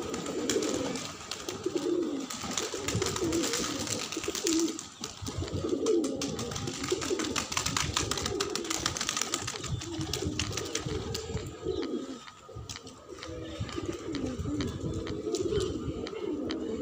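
A flock of domestic pigeons cooing, many low coos overlapping continually, with a rapid scatter of light clicks from beaks pecking feed on the concrete.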